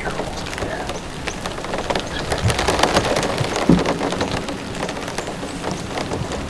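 Rain pattering on a hunting box blind: a steady hiss full of small drop taps. There is a single thump a little over halfway through.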